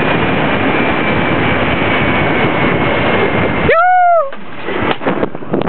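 Wind rushing over the microphone of a rider speeding down a long zipline cable, with a faint high whine. About four seconds in the rush cuts off abruptly as the rider reaches the landing. A short high cry that rises and falls follows, then a few light knocks.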